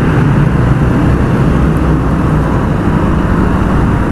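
Suzuki GS 150 motorcycle riding in traffic: the single-cylinder engine's steady hum under a continuous rush of road and wind noise.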